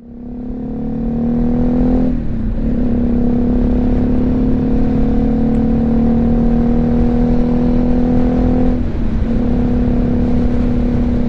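BMW G310GS single-cylinder engine running at a steady note under heavy wind buffeting on a helmet-mounted lavalier mic. The sound fades in over the first second, and the engine note breaks off briefly twice, about 2 and 9 seconds in.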